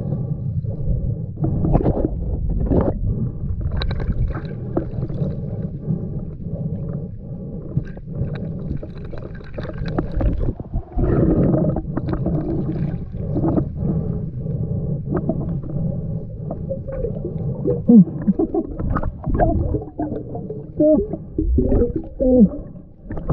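Muffled underwater noise picked up by a camera held below the surface of a river: a steady low rumble with gurgling, bubbling and scattered knocks, and a few short warbling gurgles near the end.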